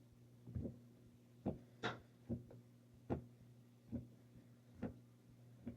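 Stair stepper being stepped on: a soft, regular knock about once a second, with one brighter click, over a low steady hum. No squeak is heard from the joints, which have been loosened and lubricated with silicone.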